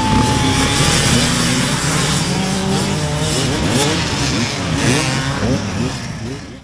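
Off-road motorcycle engine revving up and down as it is ridden, its pitch rising and falling over and over. A thin steady whine fades out in the first second, and the sound cuts off suddenly at the very end.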